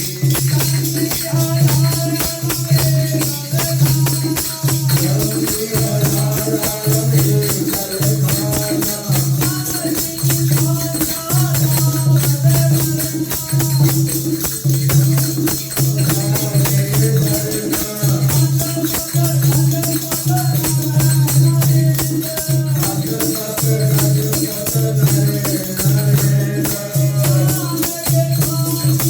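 Sikh devotional hymn singing (kirtan) over a held drone, with jingling percussion and a steady low beat about once a second.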